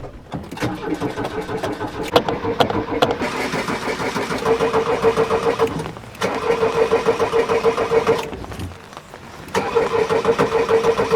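VW Bus T3 starter cranking the engine in three attempts, with a rapid, even churning rhythm. The first attempt lasts about five seconds, the second about two, and the third begins near the end. The engine does not catch: a hard-starting engine that won't fire.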